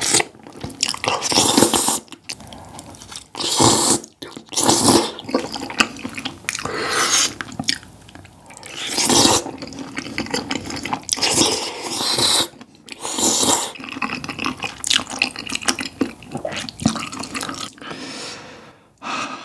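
Wide glass noodles in spicy tteokbokki sauce slurped up close to the microphone, a dozen or so wet slurps with chewing in between.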